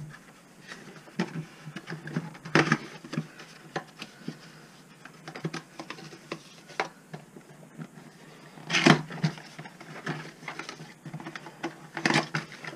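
Cardboard shotgun shell boxes being opened and handled: flaps scraping and rustling, with shells and boxes clicking and knocking as they are moved and set down. Louder knocks come about two and a half seconds in, about nine seconds in, and near the end.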